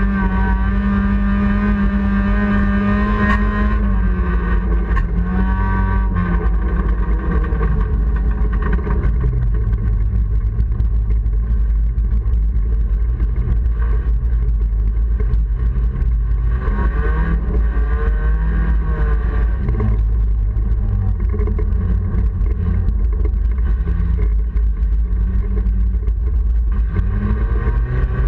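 Honda Civic's four-cylinder engine heard from inside the cabin at race pace, its pitch held high for the first few seconds, dropping about four and six seconds in, then rising and falling repeatedly with throttle and gear changes. A constant heavy low rumble runs underneath.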